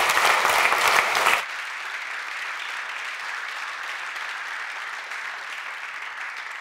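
Audience applauding. The clapping is loud for about the first second and a half, then drops abruptly and carries on more quietly.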